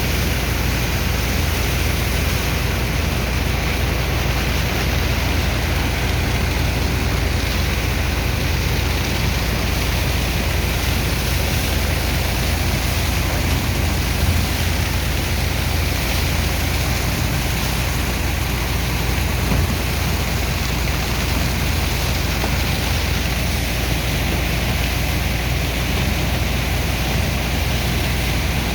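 Sand dredger's pump engine running steadily with a deep rumble, over a constant rush of water and sand being pumped out.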